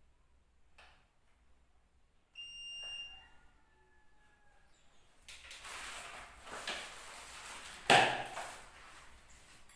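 A short electronic beep about two and a half seconds in, then rustling and clattering as items from the drone box are handled, with one sharp knock about eight seconds in, the loudest sound.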